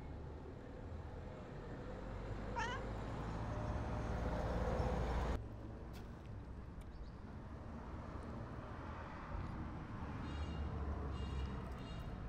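Calico cat meowing in short calls: one about two and a half seconds in and a couple more near the end. A low rumble under the first half stops abruptly about five seconds in.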